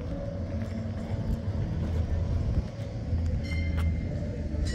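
A vehicle running past with a steady, heavy low rumble. Two brief high ringing tones come about three and a half seconds in and again near the end.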